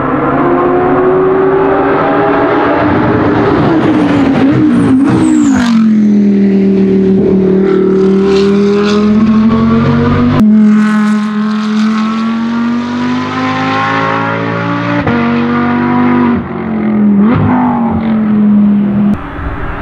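Audi R8 LMS GT2 race car's 5.2-litre V10 at high revs, passing close by with its pitch dropping about five seconds in. After an abrupt change about halfway, the engine holds a steady high-revving note, with a brief dip and rise near the end.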